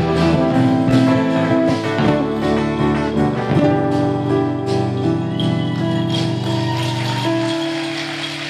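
Live band of keyboard, electric bass and drums playing an instrumental passage with no singing: sustained chords over regular percussion strikes, settling into a long held note near the end as the level eases down.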